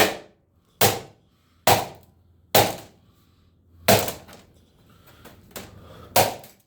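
A plastic box fan being struck hard, six sharp blows with cracking plastic. The first four come about a second apart, then two more after a pause.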